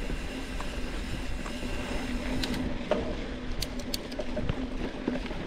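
Mountain bike rolling along a dirt trail: steady tyre and wind rumble on the bike-mounted camera's microphone, with a few sharp clicks and rattles from about two and a half to four seconds in.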